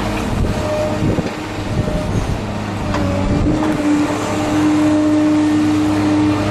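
Diesel engine of heavy demolition machinery running steadily, with a whine that grows louder about halfway through and a few faint knocks.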